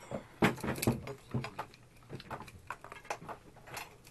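Dinner-table clatter: an irregular run of sharp clicks and knocks from cutlery and plates and from boiled lobster shells being cracked and picked apart by hand, the loudest in the first second.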